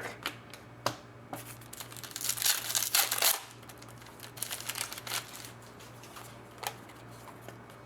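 Trading cards and their packaging being handled: rustling and crinkling, densest about two to three seconds in, with a few sharp clicks. A faint steady hum runs underneath.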